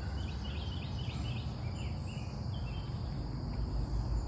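Outdoor summer ambience: a steady high insect drone with a bird chirping in a quick run of short notes over the first few seconds, above a low rumbling noise.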